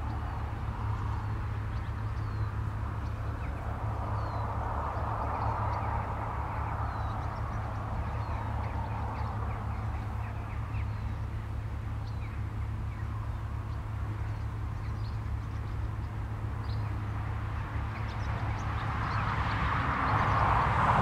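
Countryside ambience: a steady low rumble with faint chirps of small birds, and a vehicle on a nearby road whose tyre noise swells briefly early on and grows much louder near the end as it approaches.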